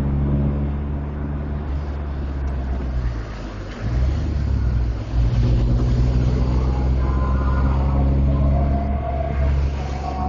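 Bus diesel engine running steadily. Its note eases off about three seconds in, then picks up and grows louder again over the next two seconds.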